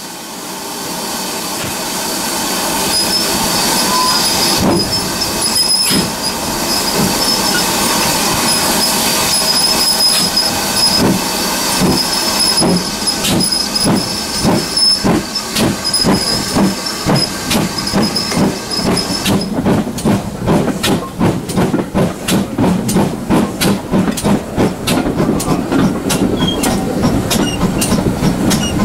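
GWR 4575-class Prairie tank engine 5521, heard from a carriage behind it, pulling away from a standstill: a steady hiss of steam fills the first two-thirds, then the exhaust beats come through sharp and regular and quicken as the train gathers speed.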